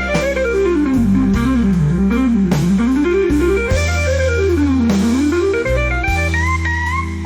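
AI-generated instrumental blues music: a lead line runs quickly up and down in small steps over sustained bass notes.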